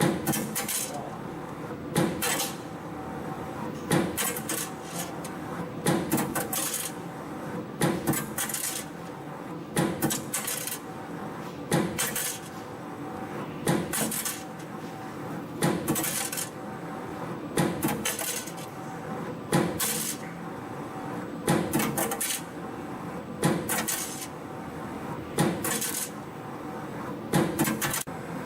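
CNC compression spring coiling machine forming 1.4 mm wire into variable-diameter compression springs. Steady machine running with a burst of sharp metallic clicks and clacks about every two seconds, one burst per spring cycle.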